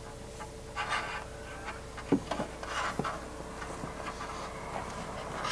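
Solar panel cable being fed by hand through the mesh grille of an RV refrigerator roof vent: soft rustling and scraping with a couple of small knocks, over a faint steady hum.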